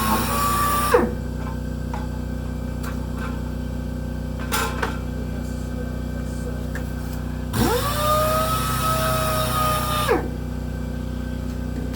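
Power sander working a small steel dash part: its motor whine winds down and stops about a second in, then after a pause with a few light knocks it spins up again, sands for about two and a half seconds and winds down once more. A steady low hum runs underneath throughout.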